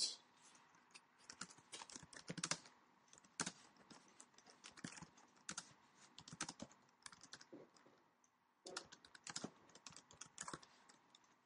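Typing on a computer keyboard: a run of faint, irregular key clicks, with a short pause about eight seconds in.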